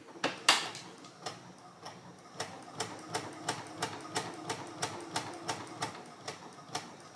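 Electric sewing machine stitching a straight seam through cotton fabric. Each stitch gives a click over a faint motor hum, slow at first and then steady at about three stitches a second.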